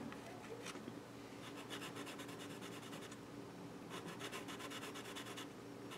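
Black watercolor pencil scribbling on a plastic model flight deck, drawing tire burnout marks. It comes in two faint runs of rapid short strokes.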